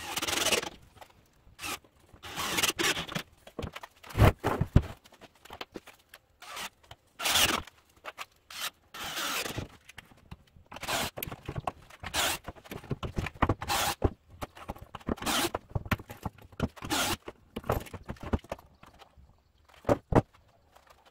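Woodworking at a bench: a run of short scraping, rasping bursts, each under a second, as pine boards are drilled and handled, with a few knocks of wood around four seconds in and again near the end.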